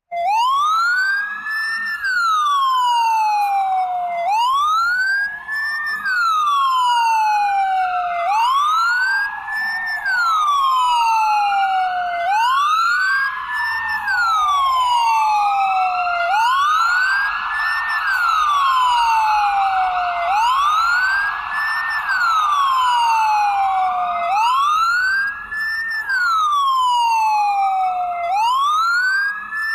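Ambulance siren wailing. Each cycle rises quickly in pitch for about a second, then falls slowly, and the cycle repeats about every four seconds.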